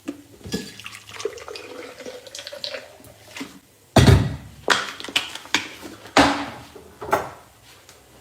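Kitchen sounds: water running and splashing, with clinks and clatter and several loud knocks of dishes and utensils.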